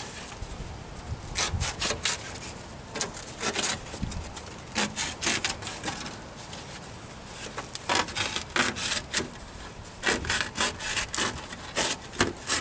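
Hand sawing through a board: quick back-and-forth strokes in several short bursts, with pauses between.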